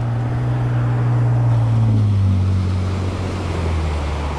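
A motor vehicle passing by, its steady low engine hum dropping in pitch about two seconds in as it goes past.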